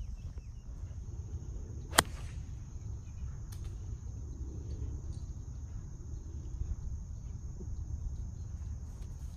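A golf club striking the ball on a tee shot: one sharp crack about two seconds in, over a steady high insect hum.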